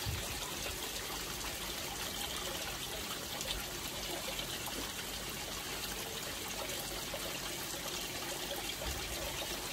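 Steady trickle of water in a koi pond.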